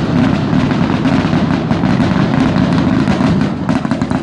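Fireworks display in a rapid barrage: many booms and crackles packed so close they merge into a continuous loud rumble, which drops off near the end.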